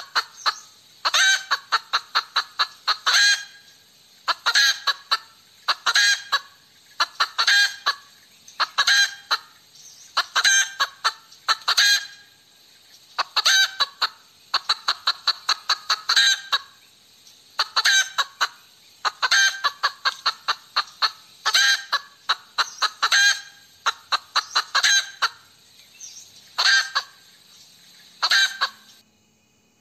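Hen cackling: groups of rapid, sharp clucks, one group about every one and a half seconds, stopping abruptly near the end.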